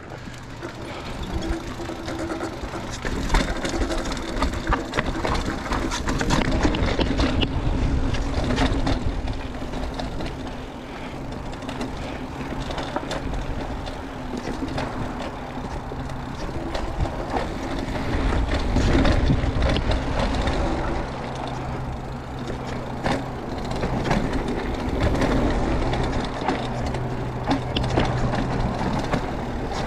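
Mountain bike descending a steep, rocky trail: tyres crunching over dirt and rock, with the bike rattling and knocking over the bumps.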